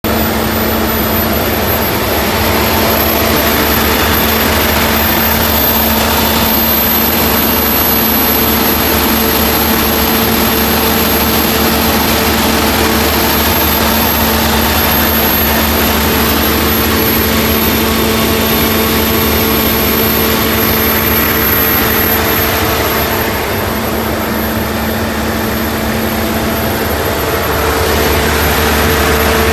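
Volvo diesel engine of a GSW 280 generator set running steadily at 1500 rpm under a load test of about 100 kW.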